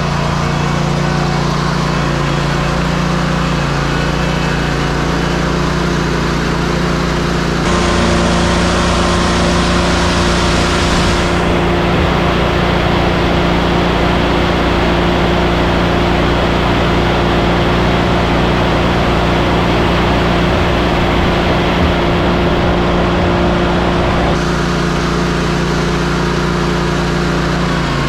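Heavy diesel engine running steadily. From about eight seconds in to about twenty-four seconds it runs louder and harsher, then settles back.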